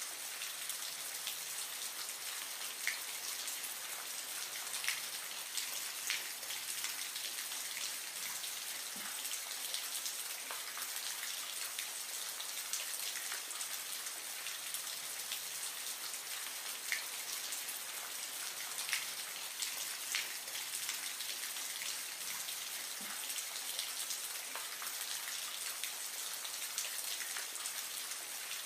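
Steady watery hiss with faint scattered drips and small pops.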